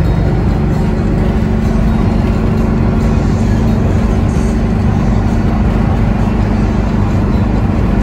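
Volkswagen Kombi van cruising at highway speed, heard from inside the cab: a loud, steady engine drone with a low hum and road noise.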